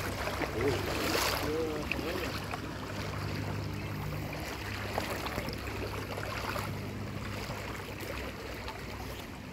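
Shallow river water running and sloshing around wading legs, a steady watery rush with a brief louder swash about a second in.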